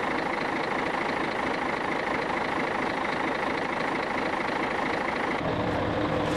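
Truck diesel engine running steadily at idle. About five seconds in the sound changes abruptly to a deeper, fuller engine hum with a steady drone.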